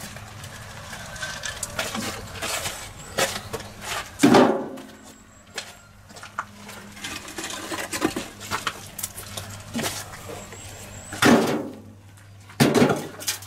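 Broken stone slabs and bricks clattering and knocking as pieces of rubble are picked up and dropped, with three heavier thuds about four seconds in and twice near the end.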